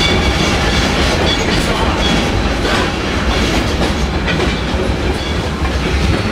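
Amusement-park railroad train running along the track, heard from aboard: a steady rumble of wheels on rail, with occasional clacks.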